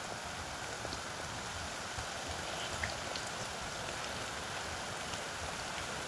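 Potato spring rolls deep-frying in hot oil: a steady sizzle with a few faint pops.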